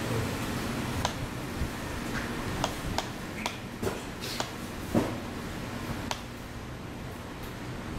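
Steady hiss of room ambience with scattered small sharp clicks and taps at irregular intervals, the loudest about five seconds in.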